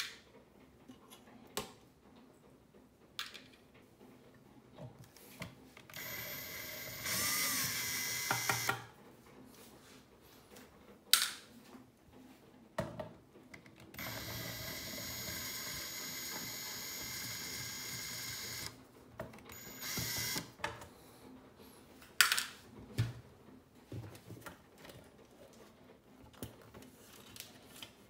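Cordless drill/driver running in several bursts as it backs screws out of a metal amplifier chassis: a short run about six seconds in that speeds up partway, a longer steady run of about four and a half seconds in the middle, and a brief one just after. Sharp clicks and knocks of screws and the metal chassis being handled fall between the runs.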